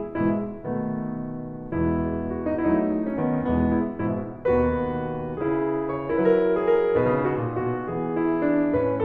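Background piano music: a gentle melody of single notes and chords struck and left to ring.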